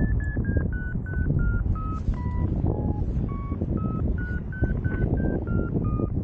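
Paragliding variometer beeping its climb tone in short beeps about three a second, the pitch stepping up and down as the lift varies. Loud wind rushes over the microphone underneath.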